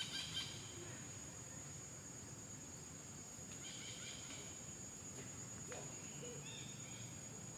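Steady high-pitched insect drone in the trees, with a few short chirps near the start and again about halfway through.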